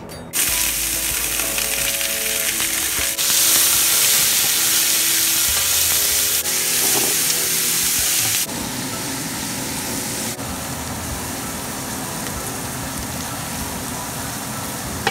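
Diced carrots, celery and onion sizzling in hot oil in a stainless steel pot while being stirred with a wooden spatula, the vegetables sautéing until soft. The sizzle starts suddenly about half a second in, grows louder about three seconds in, and drops to a quieter, steady sizzle after about eight seconds.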